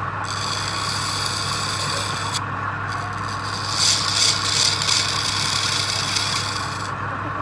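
Wood lathe running with a steady motor hum while a turning tool scrapes and cuts the spinning wood. The cutting noise breaks off about two and a half seconds in, then comes back louder from about four seconds to near the end.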